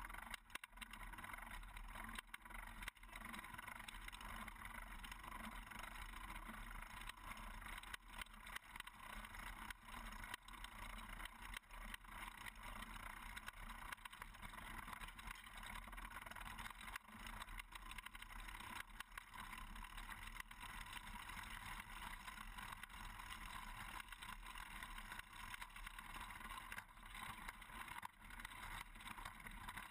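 Faint, steady outdoor noise hiss with frequent small crackles.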